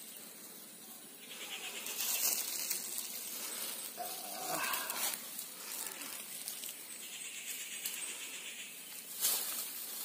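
Leaves, vines and weeds rustling and snapping as hands push and search through dense undergrowth, in uneven spells. A short call stands out about four and a half seconds in.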